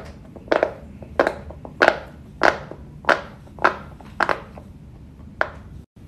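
Large rainbow silicone pop-it fidget board, its bubbles pushed through by hand one after another: a steady run of about nine sharp pops, a little under two a second, that stops just before the end.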